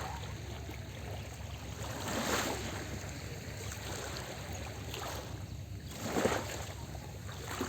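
Small sea waves breaking and washing on the shore, two louder wash-ins about two and six seconds in, over a steady low rumble.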